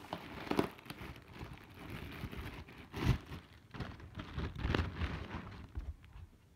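Plastic garment bag being opened by hand, crinkling and rustling in uneven handfuls with a few louder crackles. It stops about six seconds in.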